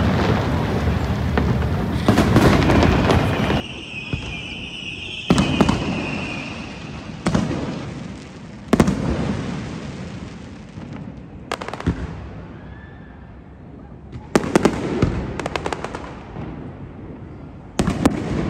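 Fireworks display: a dense run of crackling bursts, then single aerial shells bursting a couple of seconds apart, each bang followed by a fading rumble. Near the end come clusters of quick cracks.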